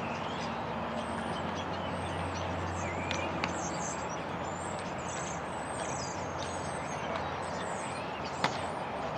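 Small birds chirping over a steady low outdoor rumble, with two sharp knocks, a faint one about three seconds in and a louder one near the end.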